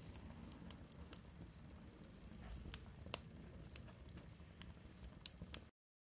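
Wood fire with sausages grilling over the embers: faint, sparse crackles and pops over a low rumble, one louder pop near the end, then the sound cuts off.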